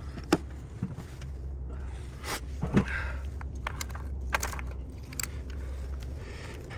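Irregular clicks and knocks of hand tools and engine parts being handled while a spark plug is checked for tightness, over a steady low hum.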